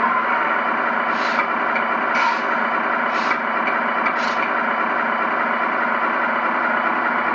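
A radio-controlled model car running steadily, with four short hiss-like bursts about a second apart in the first half.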